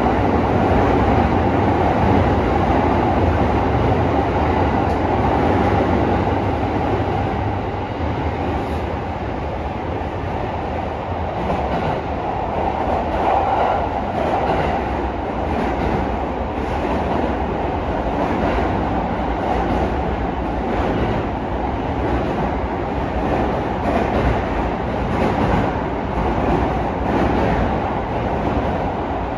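Running noise heard inside a JR East E217 series commuter car travelling through an underground tunnel. It is a steady rumble of wheels on rail, with faint, irregularly repeated clicks from about eight seconds in.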